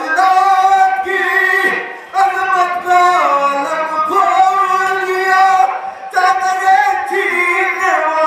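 Mourning lament (noha) being sung, the voice holding long drawn-out notes in phrases of about two seconds with brief breaks between them.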